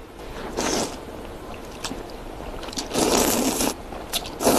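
A person slurping noodles from a bowl of soup: a short slurp, then a longer, louder one about three seconds in, and a brief one near the end.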